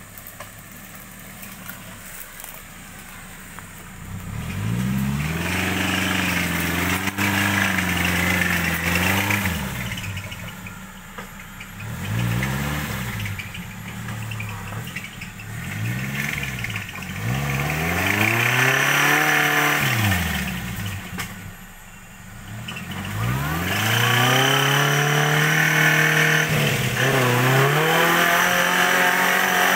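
Engine of a tube-frame off-road buggy revving in repeated rising and falling swells as it crawls over a rough dirt trail. The revs drop off briefly a little past the middle and are held high near the end.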